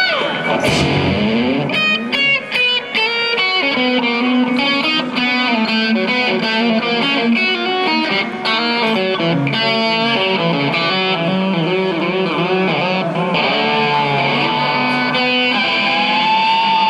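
Electric guitar solo on a black Stratocaster-style guitar. A steep dive in pitch comes in the first second, then fast runs of notes follow, and near the end it settles into a long held, wavering note.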